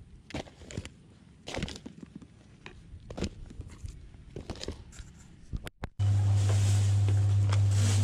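Knocks, taps and rustling as an FPV quadcopter and a LiPo battery bag are handled in a lap. About six seconds in the sound drops out briefly, then a loud, steady low hum with a background hiss sets in.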